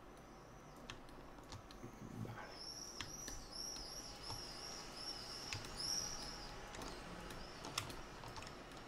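A small bird chirping faintly: a quick run of about a dozen short, high notes, each rising and falling, from about two and a half to six seconds in. Sparse computer mouse clicks are heard around it.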